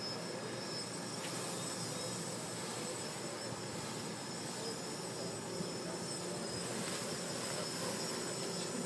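Hexacopter's electric motors and propellers running steadily in flight, a constant whine made of several high tones over a hum.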